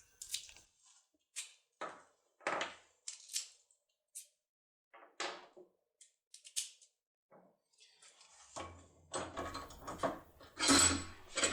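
Scattered metallic clicks and knocks of a key-type lockpick being worked in a cylinder lock, becoming a quicker run of clattering knocks in the last few seconds.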